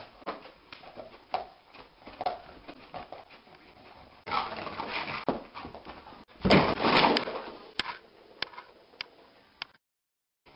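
A dog asleep and dreaming: short clicks and scuffles of twitching, scrabbling paws, mixed with muffled dog sounds. There are two louder outbursts, about four seconds in and, loudest, about six and a half seconds in.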